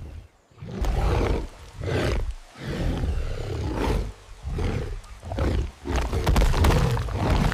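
Lion and tiger roaring in a fight, about six roars one after another with short breaks between them.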